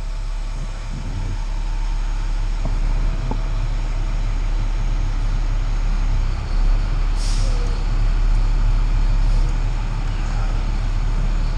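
Fire engine's diesel engine running steadily, heard from inside the cab, with a short air-brake hiss about seven seconds in.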